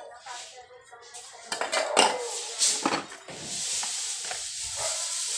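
Spoons and forks clinking and scraping against dinner plates while eating, in a few sharp clicks about halfway through, followed by a steady hiss.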